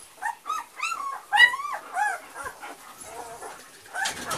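Very young German Shepherd puppies crying: a quick run of high, squealing whines, each rising and falling in pitch, about eight in the first two and a half seconds, then softer ones. Near the end a louder rustling joins in as the mother dog walks in over the straw.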